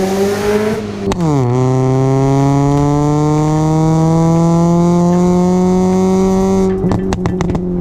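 Straight-piped Kia Rio's engine pulling hard under acceleration: the pitch rises, drops sharply about a second in as it shifts up a gear, then climbs slowly and steadily in the next gear. Near the end a music beat comes in over it.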